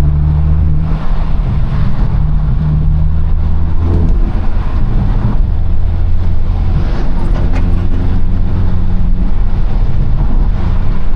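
2022 Honda Civic Si's 1.5-litre turbocharged four-cylinder running under way, heard as a steady low drone inside the cabin. The drone breaks off briefly about four seconds in and then comes back.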